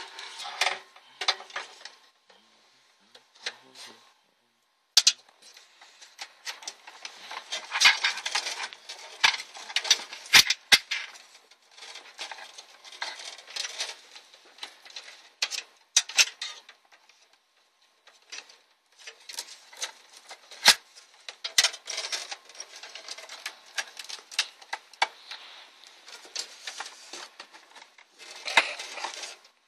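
Plastic clicks, taps and rustling of SATA and power cables being handled, routed and plugged in inside a PC case, in irregular clusters with a few short pauses.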